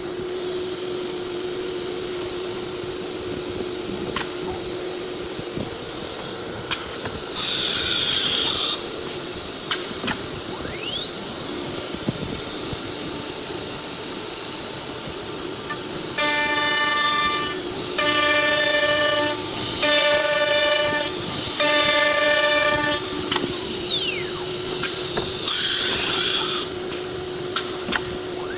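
CNC router running: a steady machine hum, two loud rushing bursts of about a second each, and a few pitch glides. In the middle comes a row of four short spells of a pitched whine, each about a second long.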